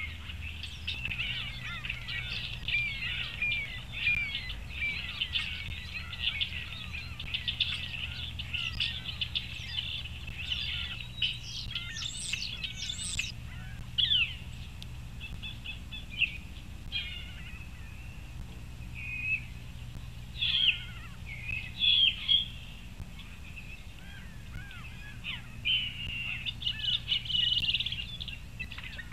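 Small songbirds singing outdoors, a chorus of high chirps, trills and short whistles: dense at first, thinning through the middle and picking up again near the end. A steady low hum runs underneath.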